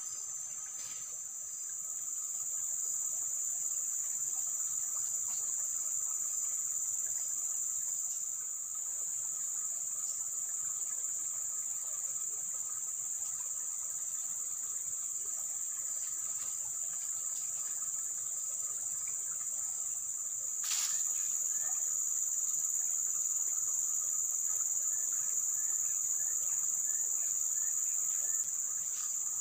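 Steady, high-pitched chorus of insects, unbroken throughout. A single sharp click comes about two-thirds of the way through, after which the chorus is a little louder.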